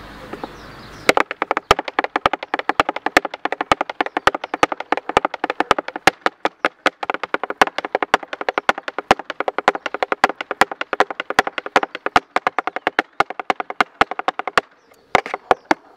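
Flamenco zapateado: a dancer's heeled shoes striking a portable dance board in a fast, rhythmic run of sharp taps, with heavier accented strikes among them. The taps start about a second in and stop shortly before the end after a few last strikes.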